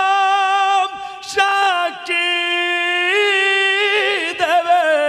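Man singing a Bengali devotional gojol solo, drawing out long held notes: one held to about a second in, then after a short break another long note that wavers into vocal ornaments near the end.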